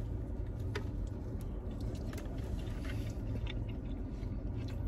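A person biting into and chewing a soft-tortilla chicken-strip taco, with faint small mouth clicks, over a steady low hum inside a car cabin.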